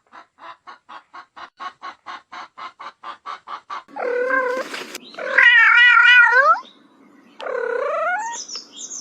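A rapid, even pulsing at about five pulses a second, followed by a cat meowing three times in loud, wavering, drawn-out calls, the middle one the longest and loudest.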